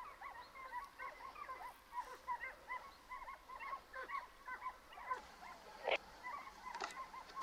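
A pack of hunting dogs barking and baying in the distance: many short, overlapping calls, faint and continuous, with a couple of brief clicks near the end.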